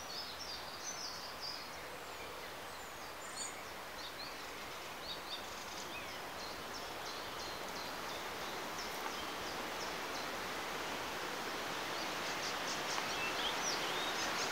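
Outdoor pasture ambience: a steady hiss of background noise that slowly grows louder, with scattered faint high chirps and a few soft rustles.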